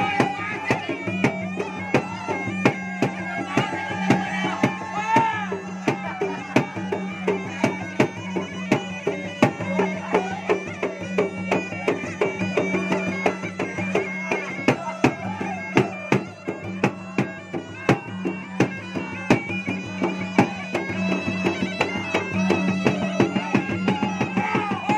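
Two Makassar gendang drums beaten in a fast, dense, driving rhythm, over a steady low drone and a continuous melody that moves up and down in pitch.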